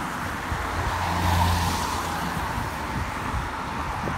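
A car passing on a wet road: tyre hiss with a low engine hum, swelling to its loudest about a second and a half in, then fading.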